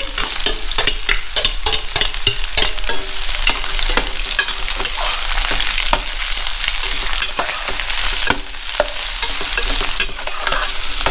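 Chopped onions sizzling in hot mustard oil in a stainless steel pot, with a steady hiss. A metal spatula repeatedly scrapes and clinks against the pot as they are stirred.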